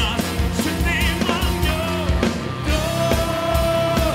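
Live rock worship song: a male singer over bass guitar, electric guitar and drums with a steady beat, with one long note held through the second half.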